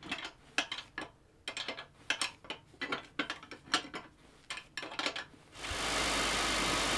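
Metal clinks and knocks of a wrench working the tailstock clamp nut on a metal wood lathe, about a dozen irregular strikes. About five and a half seconds in, a loud steady machine noise starts suddenly and keeps running.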